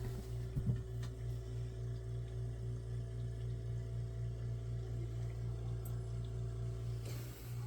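A steady low hum that pulses regularly about two or three times a second, with a brief knock about half a second in and a short soft hiss near the end.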